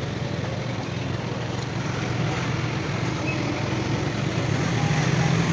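Street traffic dominated by motorbike engines running, with a steady low engine hum that grows louder toward the end as a vehicle comes closer.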